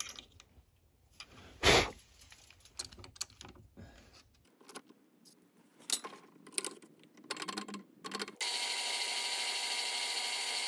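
Metal clinks and clicks as a drill-press vise is worked by hand around a small metal part, with one sharp clack near two seconds in. About eight seconds in, the drill press starts and runs steadily with a faint steady whine, its bit drilling into the metal part.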